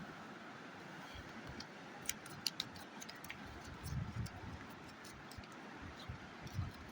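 Faint scattered clicks and a few soft knocks, like light handling of gear, over a steady low hiss.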